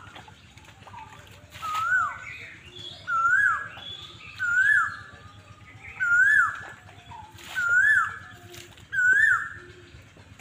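An animal calling over and over, seven times at even intervals of about one and a half seconds, each call a short pitched note that rises and then drops sharply.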